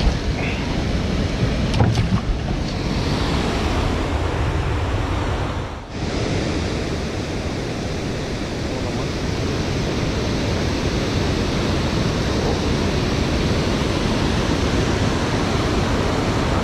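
Steady rush of water pouring through the open spillway gates of a dam, mixed with wind on the microphone. A couple of knocks come in the first two seconds, and the level dips briefly about six seconds in.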